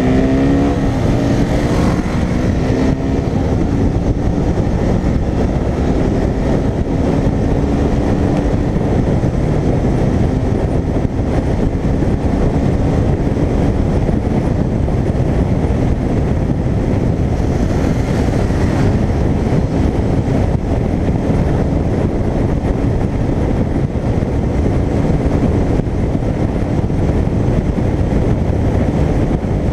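Motorcycle accelerating, its engine note rising over the first few seconds, then a steady rush of wind and engine noise at highway speed.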